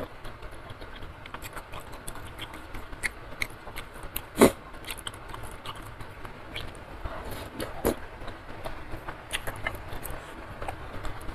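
Close-up eating sounds: chewing a mouthful of instant noodles and chewy beef skin, with soft wet mouth clicks and light taps of wooden utensils in a ceramic bowl. The sharpest click comes about four and a half seconds in, and another near eight seconds.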